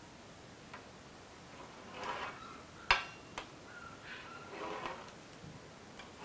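Pizza-cutter wheel rolling through a thin sheet of set gram-flour batter on a baking tray: faint scraping strokes, with a couple of sharp clicks about three seconds in.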